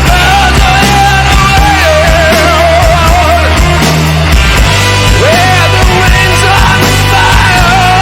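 Loud heavy rock music: a lead melody line with wide vibrato and a swooping bend a little past the middle, over thick low chords and drums.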